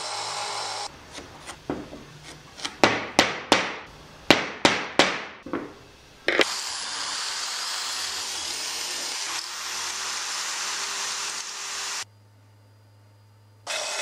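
Bench belt sander grinding a metal piece, then from about a second in a run of sharp knocks for about five seconds. An electric drill then bores a thin bit into a jujube-wood handle block, running steadily for about six seconds; after a short lull the belt sander starts up on the wood near the end.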